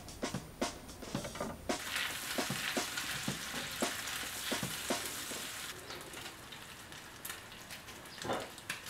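Bacon sizzling on a hot stovetop griddle pan while a spatula scrapes and turns it. A rhythmic music track ends about two seconds in, the sizzle takes over, and it grows quieter after about six seconds.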